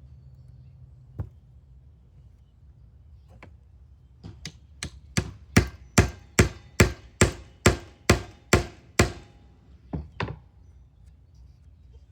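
Hammering on wood: a couple of single knocks, then a steady run of about a dozen hard blows, roughly two to three a second, ending with two last strikes.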